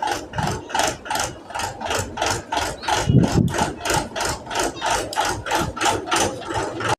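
Wheels of a 4x4 RC car clattering over the planks of a wooden bridge: a rapid, even knocking, about three to four knocks a second.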